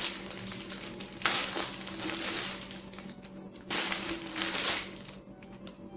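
A hoverboard rolling over a foam squishy, giving crushing, crinkling noise in two bursts over a faint steady hum.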